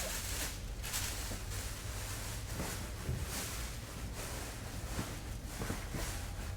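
Rustling and handling noises from packing materials, the plastic and foam of a parcel being worked by hand, in uneven bursts of crinkling hiss over a steady low hum.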